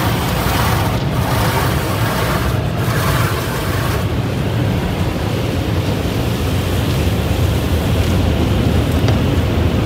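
Automatic tunnel car wash heard from inside the car's cabin: water spraying against the windshield and body over a steady low rumble of the wash machinery. The hissing spray eases about four seconds in, leaving mostly the rumble.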